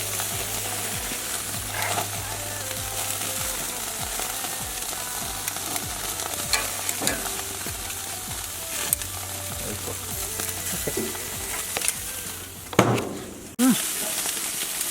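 Thin-sliced beef sizzling on a barbecue grill: a steady hiss with scattered clicks and scrapes as it is worked. There is a louder knock near the end, and a low hum under the sizzle stops abruptly just after it.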